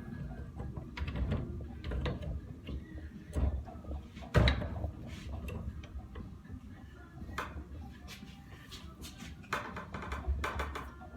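Hand tools working on a seized metal pump part: irregular knocks, clanks and handling noise, with one sharp hard strike about four seconds in and a scraping stretch near the end.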